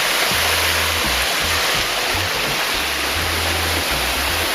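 Steady rush of a waterfall pouring into a pool, with low held notes of background music underneath.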